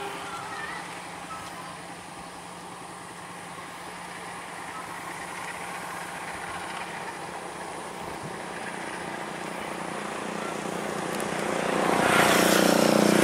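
Diesel-electric locomotive engine running with a steady low hum, then growing markedly louder near the end.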